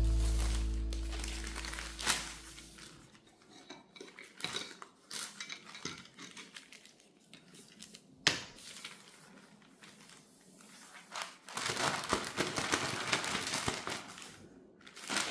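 Plastic garbage bags rustling and crinkling as they are handled, with scattered clicks and clinks from a wooden trouser hanger's metal clamp, one sharp click about eight seconds in. A low background-music note fades out over the first couple of seconds.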